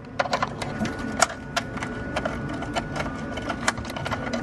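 Irregular metallic clicks and taps of a wrench working an 11 mm brake line fitting loose, over a steady low hum.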